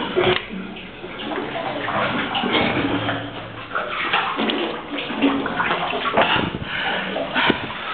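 Water splashing and sloshing as a caver moves through a shallow, partly flooded sump passage, with irregular knocks and scrapes.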